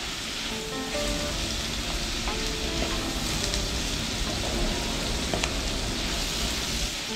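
Sliced onions frying in hot oil in a clay pot with a steady sizzle, as curry leaves and dried red chillies are pushed in from a pan with a wooden spoon.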